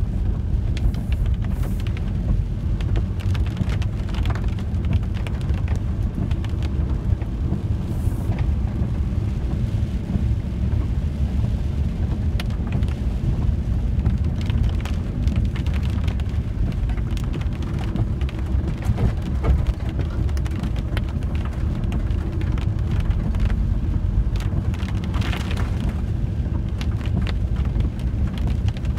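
Steady low rumble of a VW T4 campervan driving on a wet road, heard from inside the cab, with many sharp ticks of raindrops striking the windscreen and bodywork.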